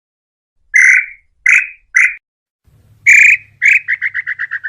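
Tataupa tinamou (inhambu-chintã) calling: three short whistled notes, then a longer note, then a quick run of short notes that speeds up toward the end.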